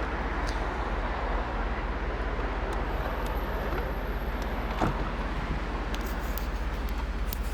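Steady running noise of a car, with a low hum underneath and one short knock about five seconds in.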